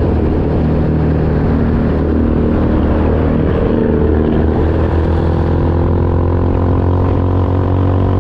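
Motorbike engine running steadily while riding along the road.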